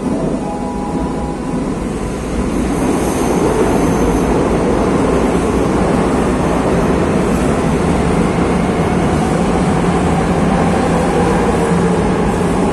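Madrid Metro Serie 5500 train pulling out of an underground station. The running noise of wheels and motors builds over the first two to three seconds, then holds steady and loud as the cars slide past.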